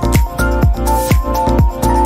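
Background electronic dance music with a steady kick drum about two beats a second under a synth melody.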